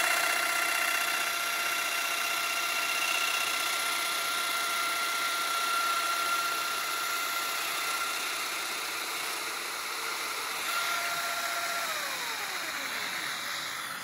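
Festool DF 700 Domino joiner running with a steady high whine over a hiss. About twelve seconds in it is switched off and the whine falls steadily in pitch as the motor winds down.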